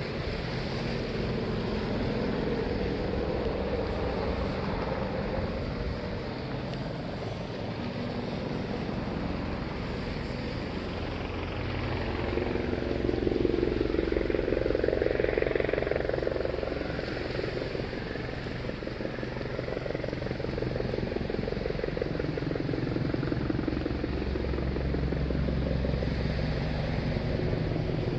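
Helicopter engine and rotor running with a rapid pulsing chop. It grows louder about halfway through, as if passing near, then eases off.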